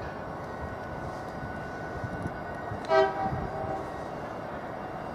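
A train running, a steady rumble throughout. About three seconds in, the locomotive gives one short toot.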